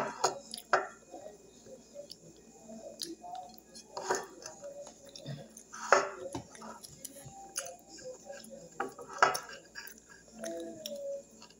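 A person eating by hand from a glass dish: fingers scraping and pressing the food against the glass, with about four sharp clinks on the dish.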